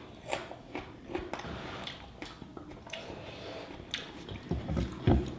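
Close-up eating sounds: wet chewing and mouth clicks of someone eating rice with egg chicken curry, many short, irregular squishy ticks.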